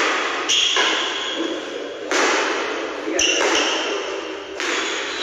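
Badminton rackets striking the shuttlecock in a rally, starting with a jump smash: several sharp hits about a second apart, each echoing in a large hall, with short high squeaks of shoes on the court.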